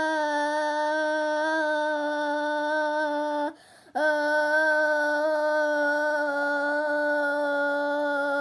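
A voice holding the long drawn-out vowel of a "bruh" at one steady pitch. It breaks off for about half a second some three and a half seconds in, then carries on.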